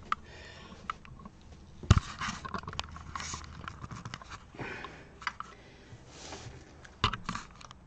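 Handling noise from the camera being picked up and repositioned: rustling, light scrapes and clicks, with a sharp bump about two seconds in and another near the end.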